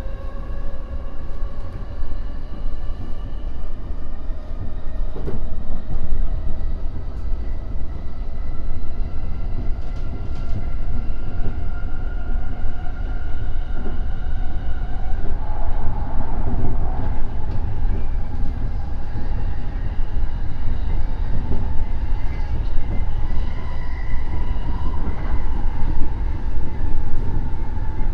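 E231 series electric train's traction motors and VVVF inverter whining as the train accelerates: a set of tones rising slowly in pitch, levelling off about halfway through, over the steady rumble of the wheels on the rails.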